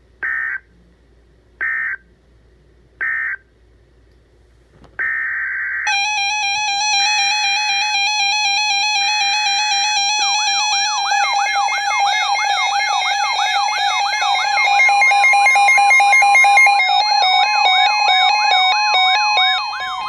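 Emergency Alert System data tones: three short end-of-message bursts about a second and a half apart, then about five seconds in, three longer header bursts opening the next alert. Under the header bursts a loud layer of steady electronic tones begins, and about ten seconds in a fast warbling siren-like tone joins, ending just at the close.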